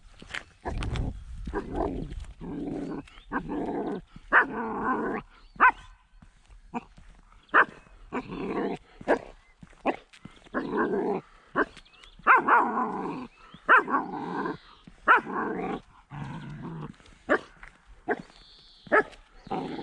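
A 10-week-old German shepherd puppy growling and barking: roughly second-long growls broken again and again by short, sharp barks.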